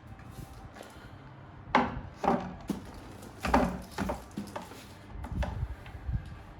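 A series of knocks, taps and rubs from a cardboard collectible-figure box being handled and set down on a surface, loudest from about two to four seconds in.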